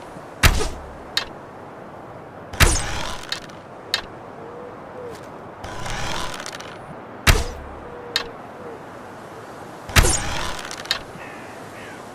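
Wooden bow shot four times in a row: each time a short rustling draw, then a sharp thunk as the string is released, and a fainter click under a second later. The shots come about every two and a half to three seconds.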